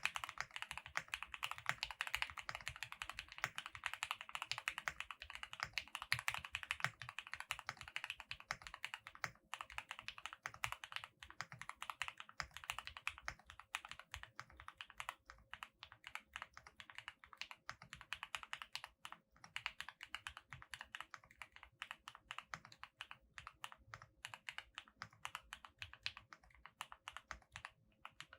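Steady fast typing on a QK65 custom mechanical keyboard with lubed Gateron Oil King linear switches, an aluminium plate, PE and plate foam, and GMK-clone keycaps: a dense run of quick keystroke clacks, several a second, with only brief pauses.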